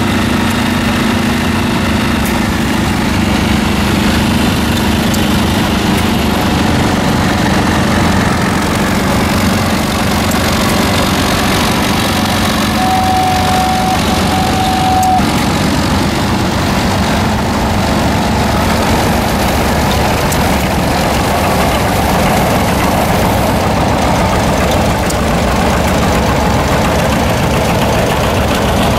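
Antique engine running steadily with a dense, even beat.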